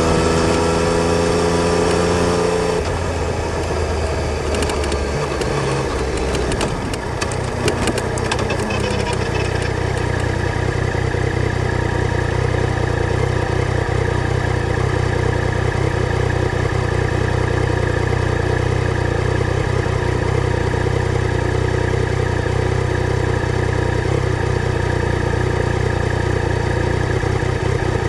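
Yamaha Tracer 900 GT's three-cylinder engine dropping in speed in a couple of steps over the first several seconds, with some clicking along the way, then settling into a steady idle.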